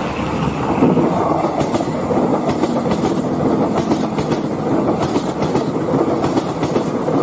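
A steady rolling rumble with short clicks about twice a second, a train-like clickety-clack from a vehicle sound effect.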